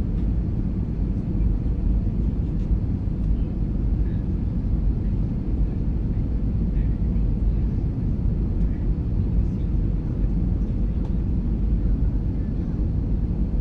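Steady low rumble of an Airbus A320's engines and airflow, heard inside the passenger cabin.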